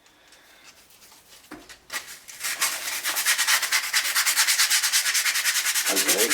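Sanding: fast, regular rasping strokes that pause at the start and start again about two and a half seconds in, with a brief knock during the pause.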